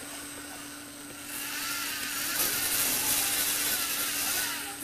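Lego Technic gear train of a motorised scissor lift running. A small electric motor whirs and the plastic gears grind, starting about a second in and stopping just before the end, with a wavering pitch. A steady low hum runs underneath.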